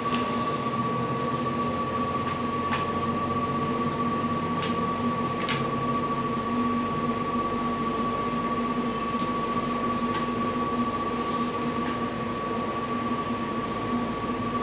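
Steady machine hum with a constant high-pitched whine, a few faint clicks and taps over it.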